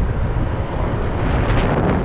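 Wind buffeting the microphone of a camera riding along a road, over steady road and engine rumble, with a brief louder rush about one and a half seconds in.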